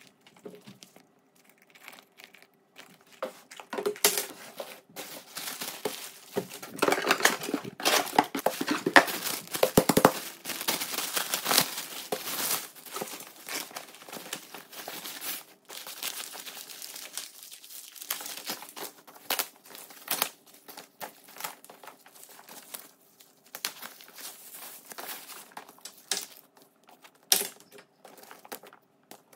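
Wrapping paper rustling and crinkling as a handbag is unwrapped by hand. The rustling is busiest in the first half, then thins out into scattered crinkles.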